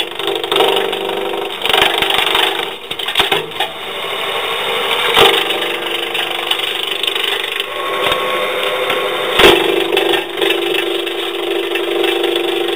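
Electric-motor-driven branch chipper running with a steady hum while its blades splinter wood, with sharp loud cracks about five and nine and a half seconds in.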